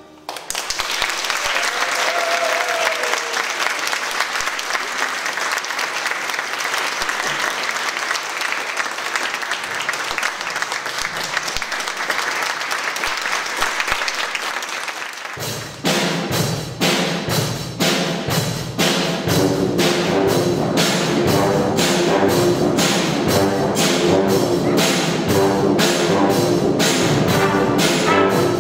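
Audience applauding for about fifteen seconds. Then a brass band with trumpets, trombones and saxophones starts a new piece with a steady beat of about two strokes a second.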